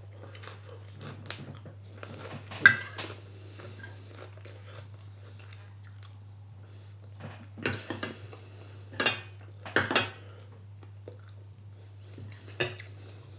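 A person eating a curry meal: quiet chewing broken by a handful of sharp crunches and clicks of cutlery on a plate, over a steady low hum.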